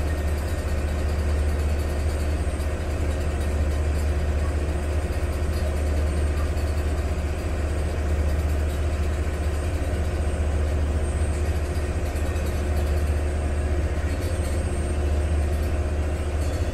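Passenger ferry's engine running with a steady deep drone as the boat cruises, heard from its deck.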